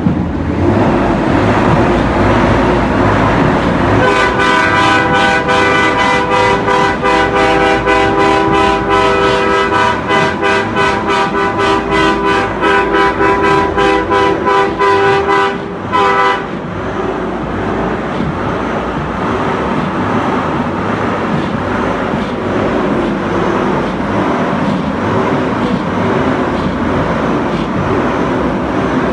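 Semi truck air horn sounding a chord of several notes, blasted in rapid repeated pulses for about twelve seconds starting about four seconds in. Around it, the truck's diesel engine runs.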